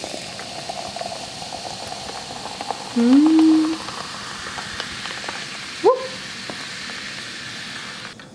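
Sparkling water poured from a can over ice into a glass jar, fizzing with a steady hiss. About three seconds in, a person gives a short hummed sound, the loudest moment; another brief rising sound comes near six seconds.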